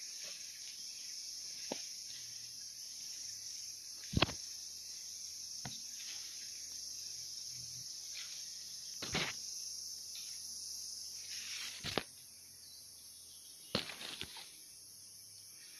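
Steady high-pitched chorus of insects. A few brief knocks and rustles break in, the loudest about four seconds in.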